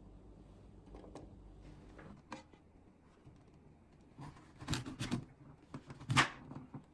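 Kitchen items being handled: a few knocks and clatters, the loudest coming about five and six seconds in.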